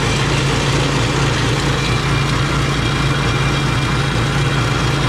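Belt-driven PE-100x150 jaw crusher running steadily under load off its single-cylinder engine, with a fast, even pulse from the engine, while crushed rock chunks out of the discharge chute.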